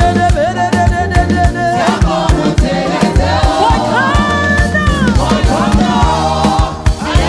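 Live gospel praise music: sung voices over bass and a steady drum beat, with drum hits about three to four a second.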